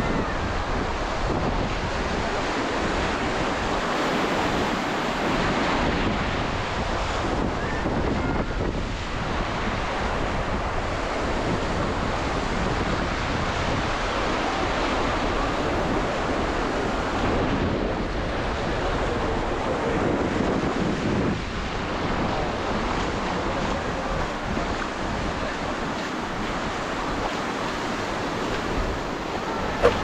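Steady rush of surf breaking on the shore, mixed with wind buffeting the microphone, and faint chatter from a crowded beach.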